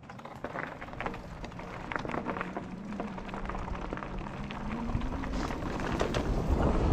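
Mountain bike rolling over a rough dirt trail, with rapid rattles and knocks from the bike and a faint hum that rises in pitch. It grows steadily louder, with wind rumble on the microphone building near the end.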